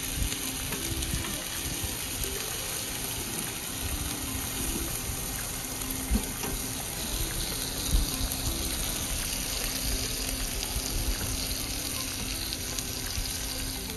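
Marinated beef short ribs sizzling steadily on the grate of a Philips smokeless electric infrared grill, with a couple of brief knocks of metal tongs moving the meat.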